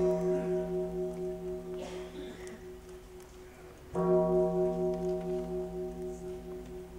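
A deep bell struck twice, about four seconds apart, each stroke ringing on with a wavering hum and slowly dying away.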